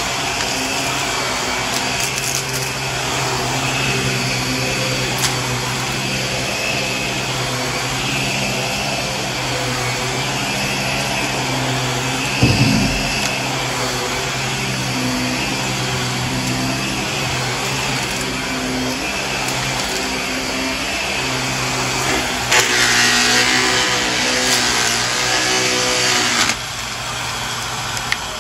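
Shark upright vacuum cleaner running over carpet: a steady motor hum under a hiss of suction, its pitch shifting as it is worked along. There is a brief thump about twelve seconds in, and a louder, brighter hiss for about four seconds near the end that cuts off suddenly.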